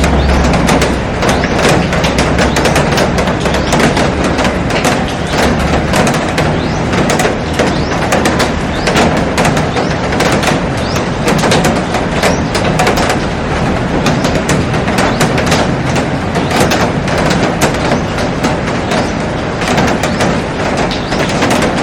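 Heavy rain falling steadily on a glass roof and garden foliage, a dense hiss full of countless sharp drop impacts on the glass.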